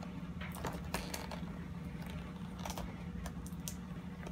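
Fingers picking and scratching at the tape on a cardboard-and-plastic toy box, giving scattered small clicks and ticks over a steady low hum.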